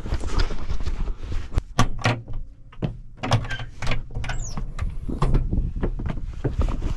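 Irregular knocks, clunks and rattles over a low steady rumble, with a brief high falling squeak about four seconds in.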